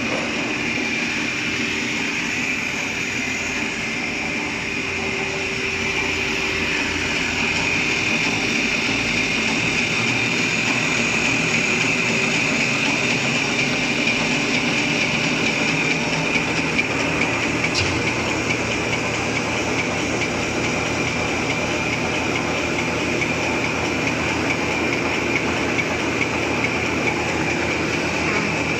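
Napkin paper folding machine running: a steady, dense mechanical clatter from its folding and cutting rollers, with a steady high whine.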